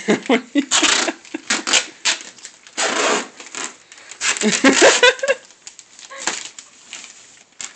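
Adhesive tape ripped off the roll in about four long, noisy pulls and pressed onto a gift wrapped in shiny foil paper, with crinkling of the paper.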